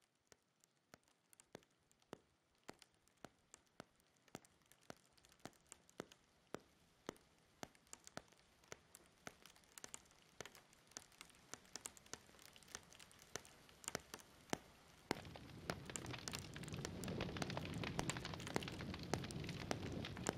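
Raindrops falling as separate sharp ticks, a few a second and growing more frequent, with a crackle that suggests a fire. About fifteen seconds in, a steady hiss of heavier rain rises under the drops.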